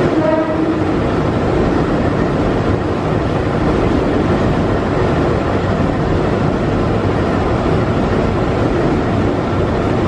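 Ex-JR 205 series electric commuter train running along the platform, a steady rumble of wheels and motors, with a short pitched tone about half a second in.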